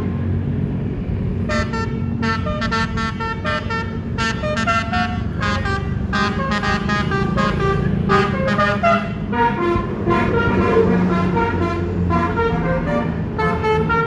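Bus telolet musical air horn playing a rapid tune of short stepped notes, starting about a second and a half in, over the low rumble of the bus engine.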